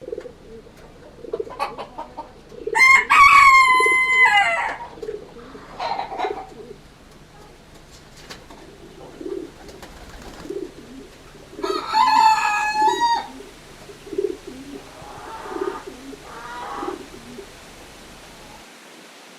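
Rooster crowing twice, about three seconds in and again around twelve seconds, over chickens clucking in a steady run of low clucks, with a few shorter calls in between.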